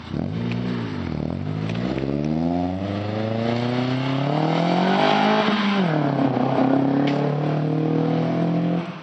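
2008 Mitsubishi Lancer GTS with a manual gearbox, a Tsudo S2 catback exhaust, an RRM test pipe and an aftermarket intake, pulling hard. The exhaust note climbs steadily in pitch, drops sharply at a gear change about halfway through, then runs on at lower revs until it stops near the end.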